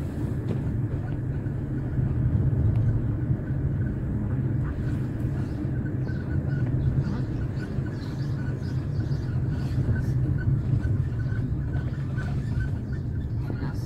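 Car running at low speed, heard from inside the cabin: a steady low rumble of engine and tyres on the road.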